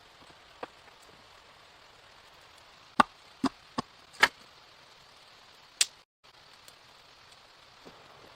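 A blade chopping into wood: a few seconds in, four sharp strikes in quick succession, then one more about a second and a half later, over a low steady hiss.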